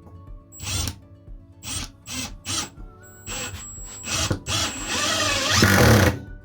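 Milwaukee M18 cordless power tool's motor whirring in several short trigger pulls, then running for about two seconds near the end while driving a screw.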